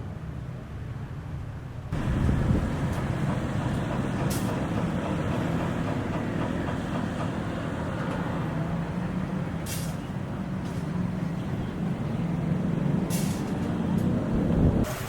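A heavy engine running steadily with a low hum. It starts suddenly about two seconds in, and a few sharp clicks sound over it.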